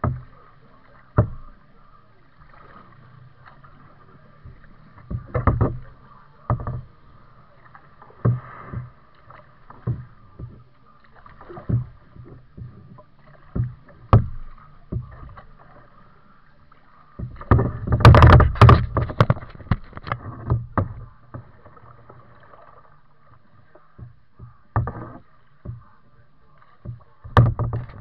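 Kayak paddling: scattered paddle splashes and knocks against the water and hull, with a longer, louder burst of splashing about two-thirds of the way through.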